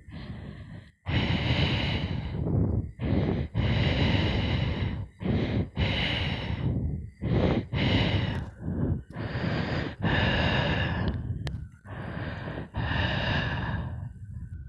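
Laboured, rasping breathing: about a dozen harsh breaths in an uneven series, each from a fraction of a second to about a second and a half long, with short gaps between them.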